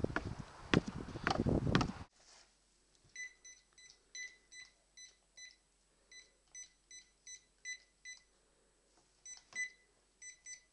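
A phone keypad beeping as a long number is keyed in: a long, uneven run of short key beeps, each at the same pitch, a few per second. Before it, about two seconds of loud noise.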